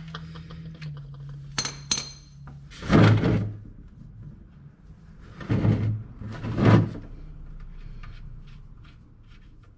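Tools handled while the oil drain plug is loosened with a 14 mm socket wrench: two sharp metallic clinks with a brief ring, then three louder, longer scraping knocks.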